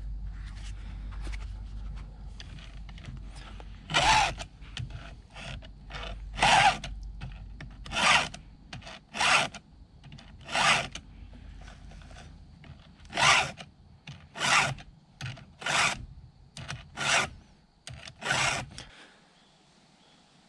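Stihl 2-in-1 file sharpener being pushed along a dull Stihl MS170 chainsaw chain, its round and flat files rasping on the cutters: a string of short filing strokes about one every second or so, which stop shortly before the end.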